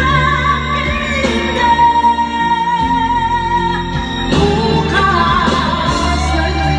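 A woman singing a ballad into a handheld karaoke microphone over backing music, holding one long note with vibrato in the middle.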